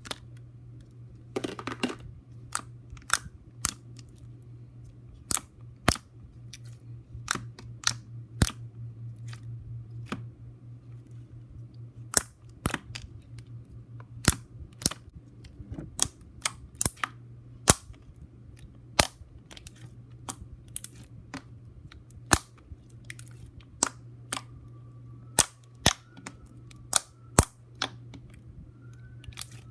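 Thick slime being poked and squeezed by hand, giving off sharp, irregular popping clicks as trapped air bursts, roughly one or two a second, over a steady low hum.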